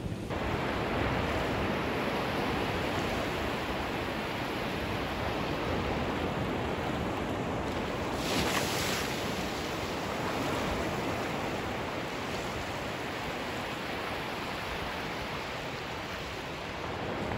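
Ocean surf washing onto a pebbly beach, a steady rushing wash of waves, with a louder hiss of breaking foam about eight seconds in.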